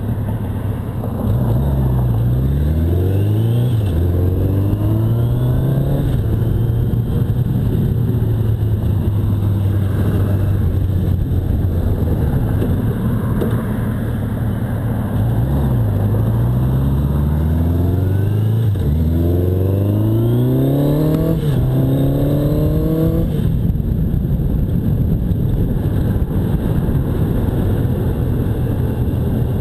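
The inline-four engine of a 1985 Honda Nighthawk 650 (CB650SC) accelerates through the gears twice, its pitch rising in each gear and dropping at every upshift. Between the pulls it runs steadily at cruising speed, with wind rushing over the microphone.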